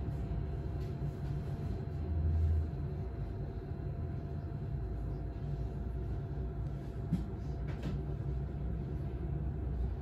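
Low steady rumble of a Solaris city bus heard from inside the passenger compartment, with a brief louder swell about two seconds in and a couple of faint clicks near the end.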